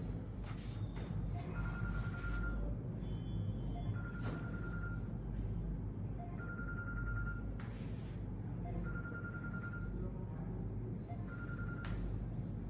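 A phone ringing: a short trilling ring repeated about every two and a half seconds, five rings in all, over a steady low hum.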